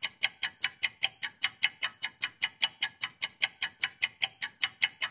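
A ticking sound effect: sharp, evenly spaced ticks at about five a second.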